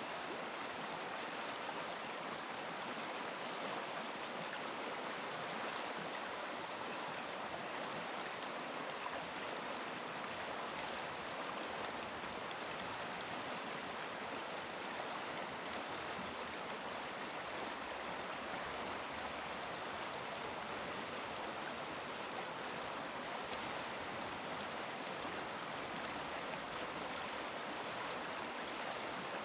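River water rushing and babbling over stones, a steady, even flow.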